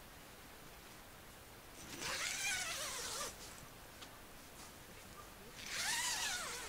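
Roe deer barking: two harsh, drawn-out calls a few seconds apart, each rising and then falling in pitch.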